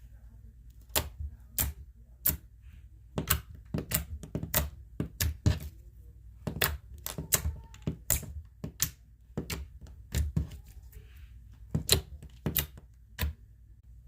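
Clear slime being handled, giving off sharp, irregular clicking pops about twice a second that stop shortly before the end.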